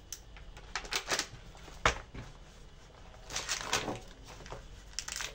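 Rustling and crinkling of a packet of lardons being handled, in several short bursts: a sharp one about two seconds in, and a cluster of rustles a little past three seconds.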